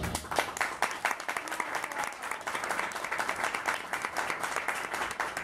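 Theatre audience applauding at the end of a performance, the clapping starting just as the music stops.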